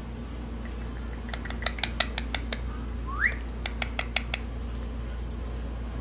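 Indian ringneck parrot making a quick run of sharp clicks, with one short rising whistle about three seconds in.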